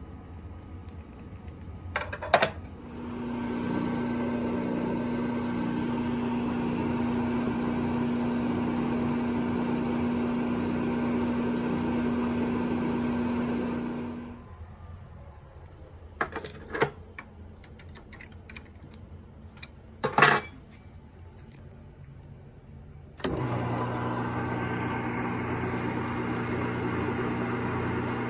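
Small hobby lathe's electric motor running with a steady hum, switched off after about eleven seconds; a few knocks and clattering of metal parts follow, and then the machine starts again with a lower hum.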